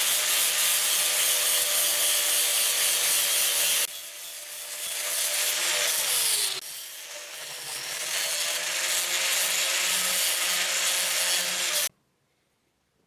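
Electric power tool grinding or sanding rusty metal pliers: a harsh, loud hiss over a steady motor hum. It eases off twice in the middle, with the motor's pitch dipping, then stops suddenly near the end.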